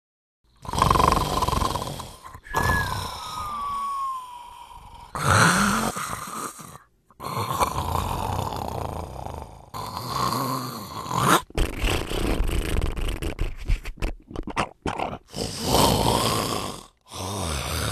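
A series of loud snores of different kinds, separated by short pauses. About three seconds in, one snore carries a whistle that falls in pitch, and later there is a quick run of short, chopped snorts.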